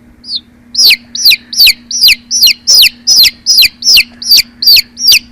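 Domestic chicks peeping: loud, high calls that each slide down in pitch, repeating about three times a second after a short pause in the first second.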